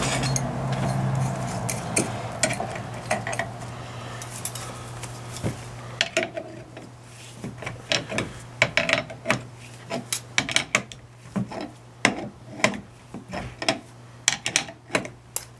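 Hand tools clinking, tapping and scraping on the steel parts of a Dana 44 differential carrier: many sharp, irregular metal clicks through the second half, after a low hum that fades over the first two seconds.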